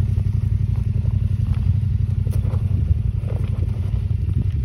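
Large adventure motorcycle's engine running at low revs as it descends a steep, rocky track, with a few faint clicks of loose stones. The engine fades slightly near the end as the bike moves away.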